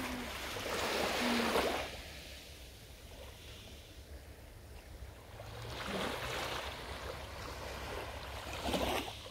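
Small waves washing up onto a sandy beach on a calm sea: three gentle swells of surf, about a second in, around six seconds in and near the end.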